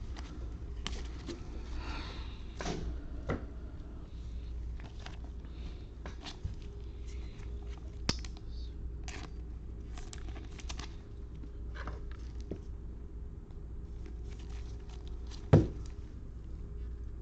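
Baseball trading cards and pack wrappers being handled: scattered clicks, rustles and crinkles as cards are flipped and packs opened, with one louder thump near the end.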